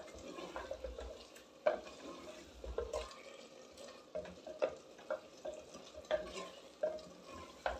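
Wooden spoon stirring and scraping thick chicken-and-spinach curry in a clay handi, with irregular light knocks of the spoon against the pot, as the curry fries in its oil at the bhunai stage.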